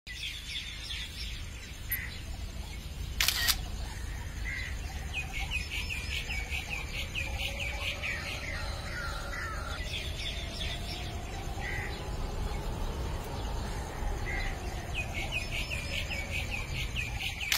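Birds chirping in quick repeated series over a steady low outdoor hum, with a DSLR camera shutter clicking about three seconds in and again at the very end.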